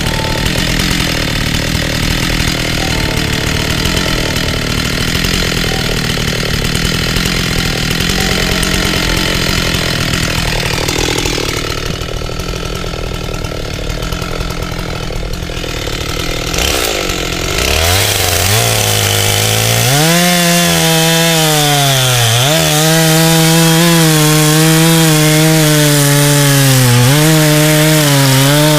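Husqvarna 385XP two-stroke chainsaw running hard. It drops back to a lower, quieter note for several seconds in the middle, then revs up again and cuts wood. The engine note sags briefly a few times as the chain bites.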